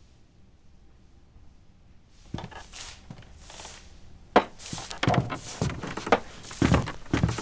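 Footsteps and the tap of a walking stick on the ground, as sound-design Foley: soft scuffing steps begin about two seconds in, then a run of sharp wooden knocks and dull thuds from about halfway.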